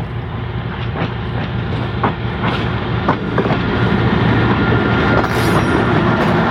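Tulloch-built DRC diesel railcar passing close by: a steady low diesel drone and rumble of running gear, with several sharp clicks of the wheels over rail joints, growing louder as it draws level.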